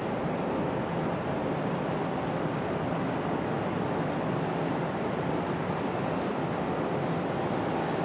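Steady, even rushing noise of airport background, from distant aircraft engines running. No siren tone rises or falls through it.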